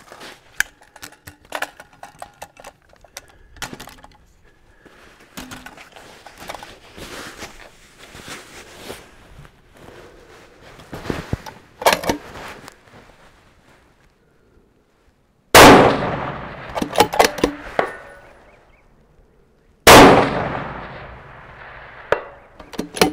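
Custom 6.5 Creedmoor bolt-action precision rifle with a muzzle brake firing two shots about four seconds apart near the end, each a loud blast with a long echo, followed by metallic clicks as the bolt is cycled. Before the shots come clinks and rustling of the rifle being handled and set on its bipod at the bench.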